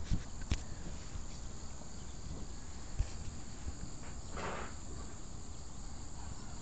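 Steady high-pitched insect chirring, with a few short handling knocks and a brief rustle about four and a half seconds in as the quadcopter's onboard camera is moved.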